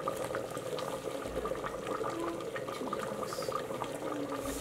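Goat curry boiling in an open aluminium pressure cooker: steady bubbling with many small pops.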